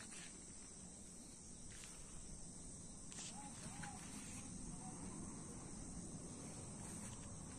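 Faint, steady, high-pitched insect chorus in a field, over a low rumble on the microphone, with a few faint short chirps.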